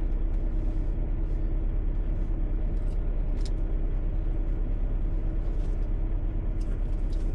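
Semi-truck diesel engine idling: a steady, evenly pulsing low rumble with a constant hum over it and a few faint ticks.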